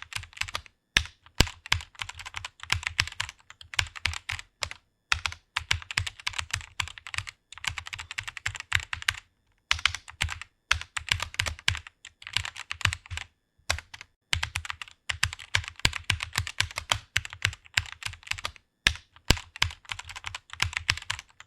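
Fast typing on a computer keyboard: rapid runs of key clicks with brief pauses between words.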